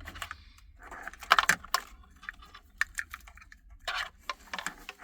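Wiring harness connectors and loose cables being handled and plugged into the back of a car stereo head unit: irregular plastic clicks and rattles, busiest about a second and a half in and again near four seconds.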